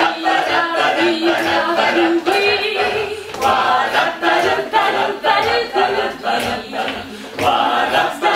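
A group of voices singing together without instruments, in phrases, with a brief pause about three seconds in and a longer lull near the end.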